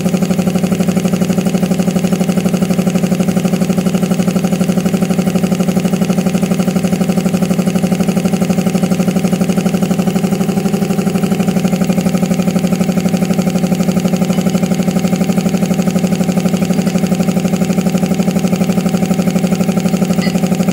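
Reciprocating piston air compressor running steadily with a fast, even pulse as it pumps the tank back up, the gauge climbing from about 120 toward the 140 psi cut-out of its pressure switch.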